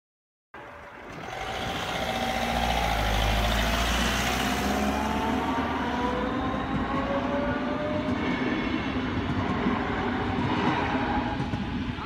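DB class 425 electric multiple unit pulling away, its traction drive whining in several tones that climb slowly in pitch as it gathers speed, over a low rumble.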